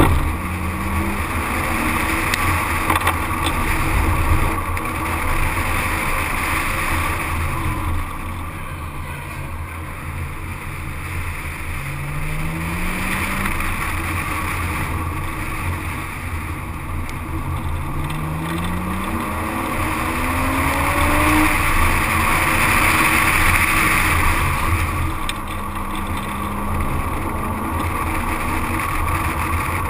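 Car engine under way, its pitch climbing slowly as the car accelerates, twice, then falling back, over steady tyre and wind rush on a camera mounted on the outside of the car.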